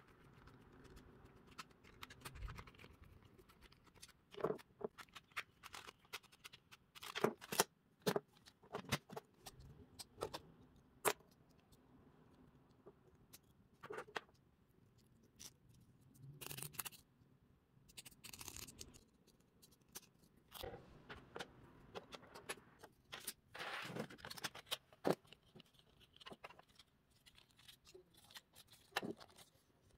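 Hand work on a small model car: scattered clicks, taps and short scrapes of small parts being handled, at irregular intervals.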